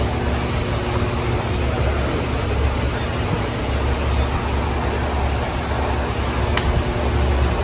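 Steady outdoor background noise with a heavy low rumble and a faint steady hum, broken by a couple of light clicks.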